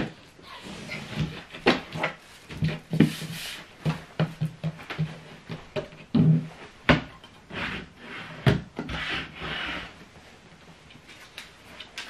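Flat-pack chipboard desk panels knocking and rubbing as the desktop is set down and shifted on the frame: a sharp knock at the start, then a run of irregular thuds and scrapes that thin out in the last few seconds.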